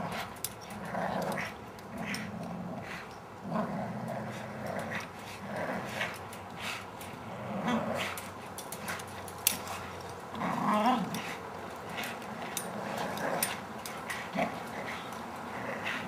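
American bulldogs growling as they hang from and tug on a springpole, in repeated rough bouts about a second apart, with scattered sharp clicks.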